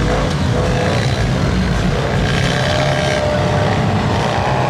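Engines of off-road trucks and ATVs running: a steady low hum, with a higher engine tone coming in about halfway through and wavering slightly near the end.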